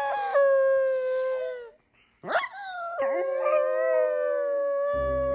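Long drawn-out canine howls: one holds and fades out about two seconds in, and after a short break a second howl rises sharply and holds, sinking slightly in pitch. Music with low bass notes comes in near the end.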